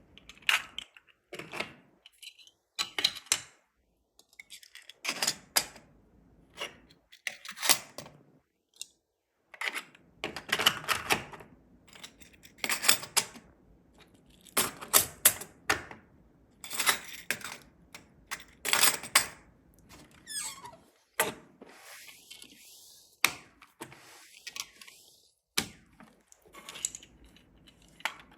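Hard plastic clicking and clattering in short irregular bursts, from 3D-printed Gridfinity bins and tools being handled and set in place.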